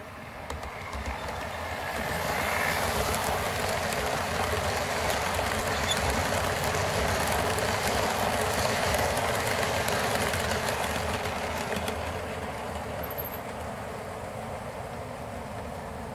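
Model passenger train running past on the layout's track, wheels rumbling on the rails. It grows louder over the first few seconds, is loudest as the coaches pass close by, then fades away.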